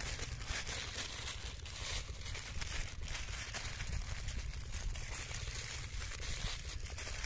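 Aluminium foil and paper crinkling and rustling as hands fold them around a fish, in irregular crackles throughout, over a constant low rumble.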